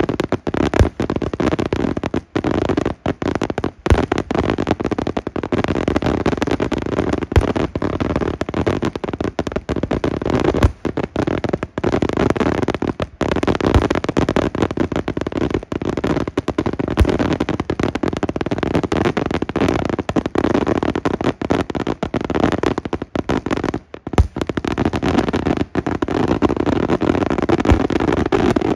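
Daytime aerial fireworks bursting in a dense, continuous barrage: a rapid string of bangs and crackling, with louder booms standing out every second or so.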